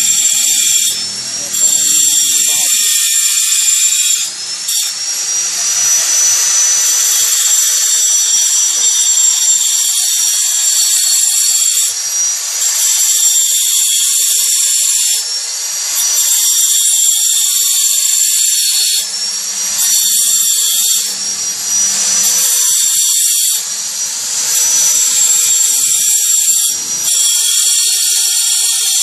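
Electric angle grinder running at speed with a high whine while its disc grinds a small agate gemstone held against it by hand, rough-shaping the stone. The sound dips briefly every few seconds and picks up again.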